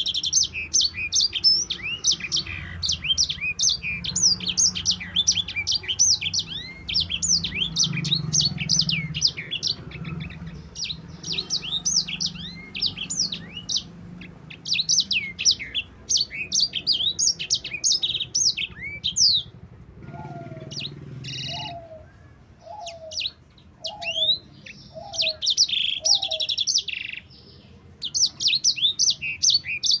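Caged sanger songbird singing a long, rapid rolling song of high chirps and trills, which breaks off into shorter bursts with brief pauses after about twenty seconds. During the broken part a lower note repeats about once a second, six times.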